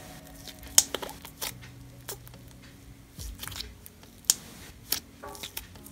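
Fingers poking and pressing glue-free slime, made from dish soap and a borax activator and slightly overactivated, in a small plastic container: soft squishing with several sharp clicking pops of air pockets, the loudest about a second in.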